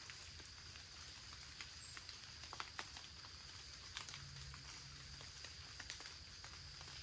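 Quiet woodland: scattered faint ticks and rustles in dry leaf litter over a faint steady high-pitched hum.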